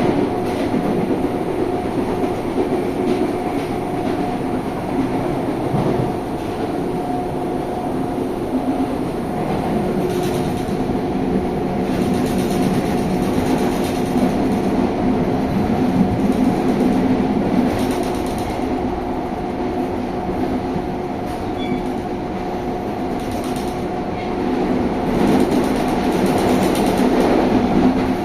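Inside a CPTM Série 2000 electric multiple unit under way: a steady traction-motor whine of several held tones over the rumble of wheels on the track, with occasional knocks from the running gear.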